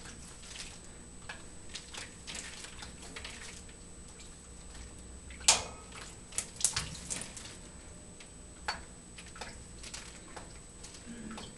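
African grey parrot bathing in its water dish: scattered splashes and clicks of water slopping against the dish. The loudest, sharpest splash comes about five and a half seconds in, followed by a quick run of several more, and another about nine seconds in.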